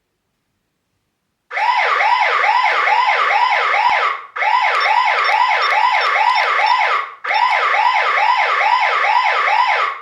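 eufy home alarm siren sounding: a loud wail of quick rising-and-falling sweeps, about three a second. It starts a second and a half in and comes in three stretches of roughly three seconds, with short breaks between them.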